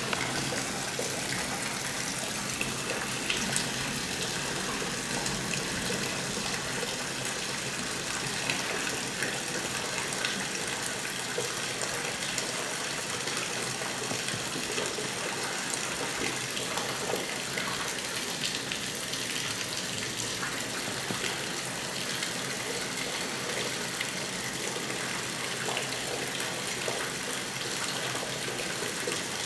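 Heavy thunderstorm rain falling steadily: a constant rush of water with scattered small drips and splashes.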